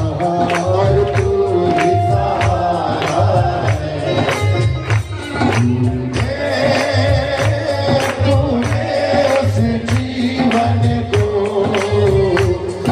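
Live Hindi devotional bhajan: a man singing into a microphone over a steady drum beat, with jingling hand percussion and clapping keeping time.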